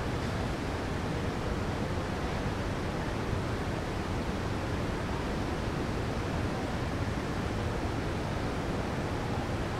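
Steady city ambience: an even, unbroken wash of background noise with a deep rumble underneath and no distinct events.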